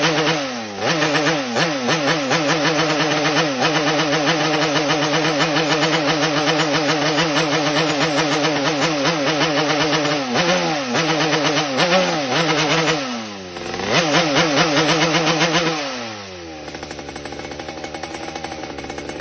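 Yamaha RX-King's single-cylinder two-stroke motorcycle engine running fast, blipped several times with each rev falling back. A few seconds before the end it drops to a quieter idle.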